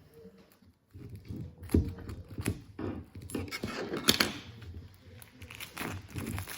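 Packaging being pulled and torn off a potted plant: irregular rustling and crinkling with sharp snaps, starting about a second in.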